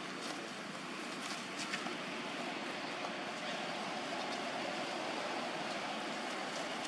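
Steady outdoor background noise, an even hiss with no change in level, with a few faint clicks in the first two seconds.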